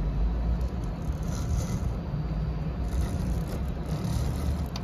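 Earthenware clay 3D printer running while it extrudes a layer: a steady low hum with faint higher whirring now and then as the machine moves.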